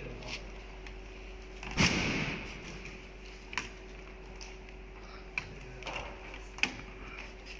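Clicks and knocks of a plastic sewing template and its metal clamps being handled as a leather panel is loaded, with one louder thud about two seconds in. A steady machine hum runs underneath.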